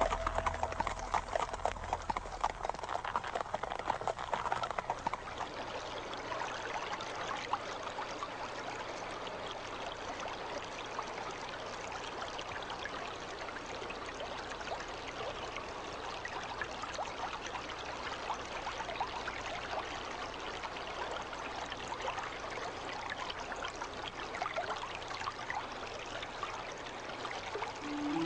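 Water trickling and splashing steadily, like a small stream. In the first few seconds, a horse's hooves clip-clop and fade away.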